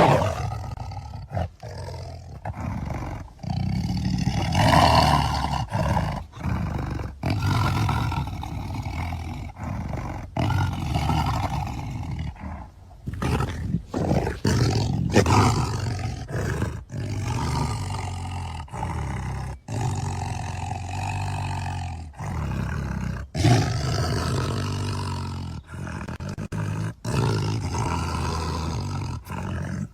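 Custom werespider creature sound effects: a string of low-pitched monster roars and growls, each a second or two long, separated by sudden short breaks.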